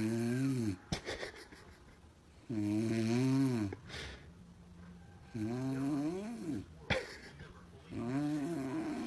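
Snoring: four long, droning snores about two and a half to three seconds apart, each dropping in pitch as it ends. A few short clicks fall in the gaps between snores.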